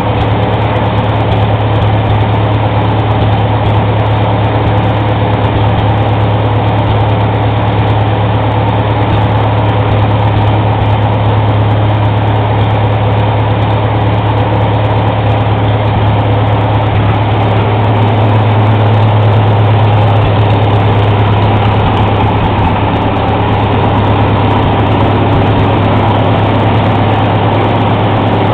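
1949 Farmall H tractor's four-cylinder gasoline engine running steadily, with a slight swell in level about two-thirds of the way through. It runs smoothly on a newly installed and timed magneto and a rebuilt carburetor.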